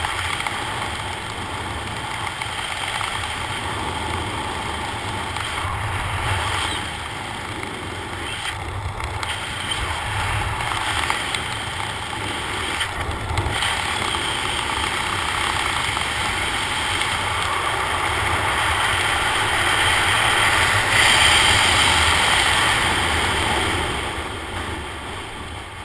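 Wind rushing over the camera's microphone as a parachute canopy glides down, a steady rumble that swells about three-quarters of the way through and dies away near the end as the canopy slows for landing.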